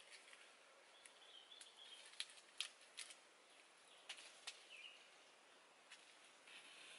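Near silence: a handful of faint, sharp clicks and snaps scattered through the middle, with faint bird chirps now and then.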